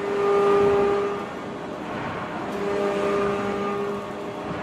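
Heavy forging-press machinery running: a steady whining tone comes and goes in spells of about a second and a half over a constant shop noise.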